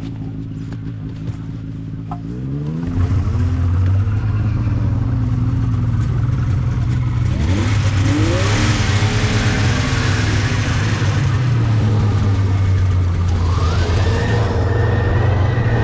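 Polaris snowmobile's two-stroke engine running under way. It revs up about two seconds in, then holds a steady, louder pitch, and a rising whine comes in near the end.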